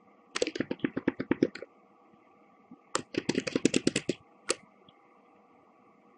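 Computer keyboard keys pressed in two rapid runs of a dozen or so clicks each, about a second long, with a single click near the end. These are repeated Ctrl-key undo presses erasing handwritten strokes on a digital whiteboard.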